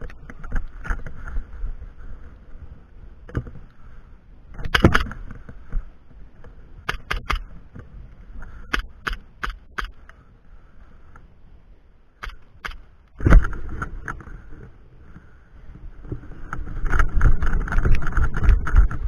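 Airsoft pistol firing short strings of sharp shots: three quick shots, then four, with single ones before and after. A heavy thump about 13 seconds in, and dense rustling and footfalls of the player moving near the end.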